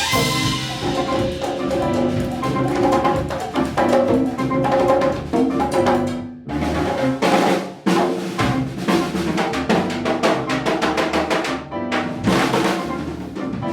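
Afro-Cuban Latin jazz band playing live, with drum kit and hand percussion to the fore in snare rolls and fills over piano and bass. The band stops short for brief breaks a few times, about halfway through and near the end, before the drums come back in.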